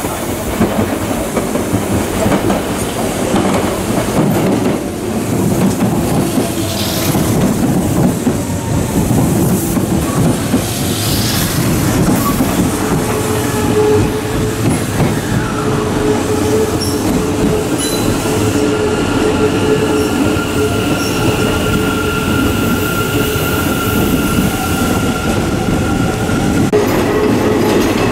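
Hanshin Railway commuter train rolling in over station pointwork, its wheels clattering and rumbling steadily. From about halfway in until near the end a steady wheel squeal sounds as the train runs past close by.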